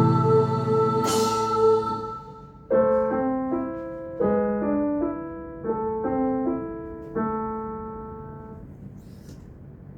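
Keyboard music ending a piece: a held chord fades out, then four chords are struck about a second and a half apart, each ringing and dying away, until the sound fades out.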